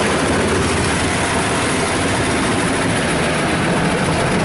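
High-pressure water jets of a Belanger Kondor KL1 touchless car wash spraying the car's sides and underbody, heard from inside the car: a steady, unbroken hiss of water hitting the body and windows.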